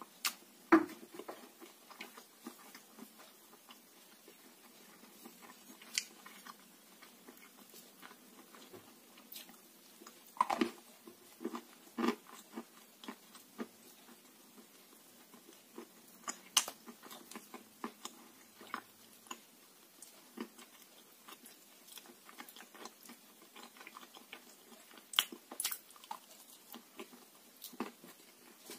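A person biting off and chewing crunchy grey chunks, with sharp crunches at irregular intervals and quieter chewing between them.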